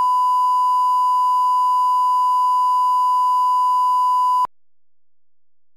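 Steady 1 kHz line-up test tone, the reference tone that goes with colour bars, cutting off suddenly about four and a half seconds in.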